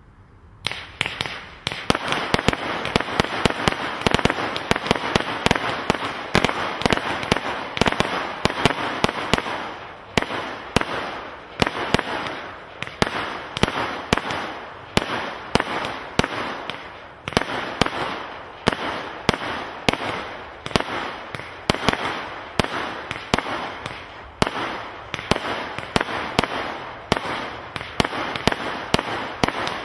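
Hallmark Witches Tongue 110-shot firework barrage cake firing: a dense, rapid string of shots and bursts over a continuous crackling hiss, starting about half a second in. After about ten seconds the shots settle into a steadier beat of roughly two a second.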